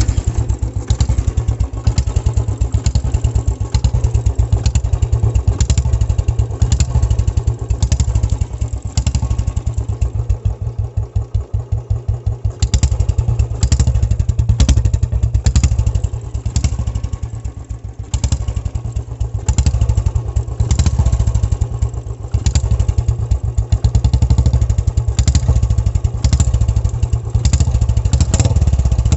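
Royal Enfield Bullet's single-cylinder engine running loud through a short-bottle ('mini Punjab') silencer, blipped with quick throttle revs about once a second, with a few seconds of plain idle, an even beat, near the middle.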